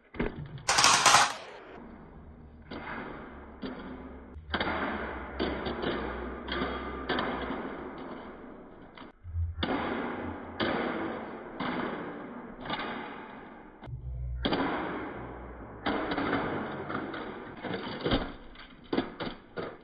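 Slowed-down sound of a diecast Toyota Highlander model car tumbling and rolling on a concrete floor: stretches of dense rattling knocks and scrapes, broken by short gaps. A brief loud hiss comes about a second in.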